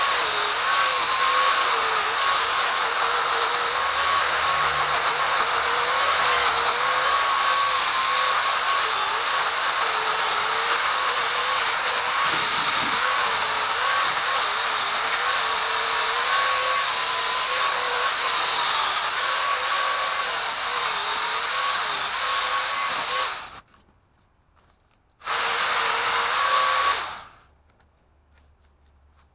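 Pole saw motor running under cutting load, its whine dipping in pitch again and again as the chain bites into branches. It cuts off near the end, runs again briefly, then stops.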